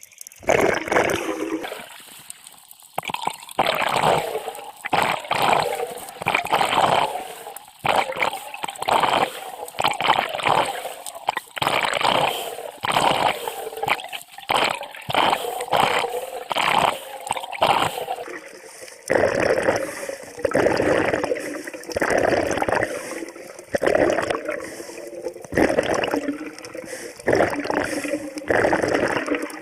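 Scuba regulator underwater: bursts of exhaled bubbles gurgling every couple of seconds.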